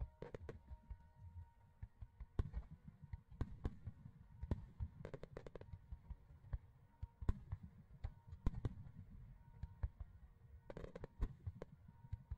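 Fireworks display: aerial shells bursting in irregular sharp bangs over a steady low rumble, with quick volleys of several bangs about five seconds in and again near the end.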